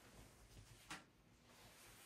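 Near silence: room tone, with one faint short click about a second in.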